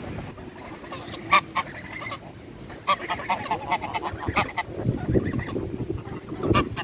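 Greylag geese honking in a string of short, repeated calls, loudest about a second and a half in and again near the end.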